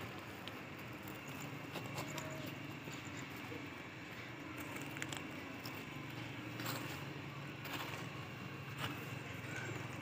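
Steady low background rumble with a few scattered sharp clicks and crunches.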